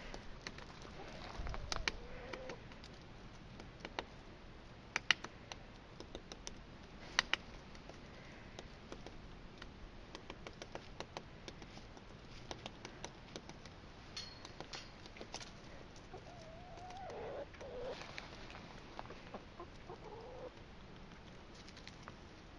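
Faint bird calls, low and gliding in pitch, heard about two seconds in and a few times near the end. Scattered sharp clicks and taps come in between, the loudest two about five and seven seconds in.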